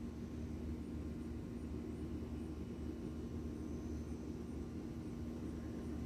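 Steady low rumble with a constant hum running under it; no birdsong stands out.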